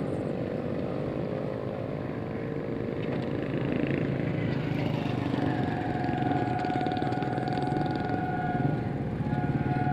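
Motor vehicle engines, motorcycles and a car, running over the level crossing against the low rumble of an approaching diesel train. From about halfway in, a steady two-note horn-like tone sounds; it breaks off briefly near the end and then resumes.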